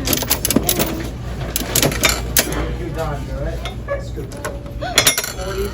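Repeated metallic clicks and clinks of coins at a coin-operated vending machine, over a low steady hum.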